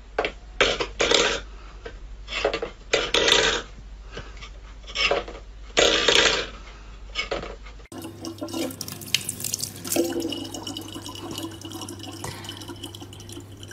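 Water splashing in irregular bursts, then, after a cut about eight seconds in, water running steadily from a tap over a low steady hum.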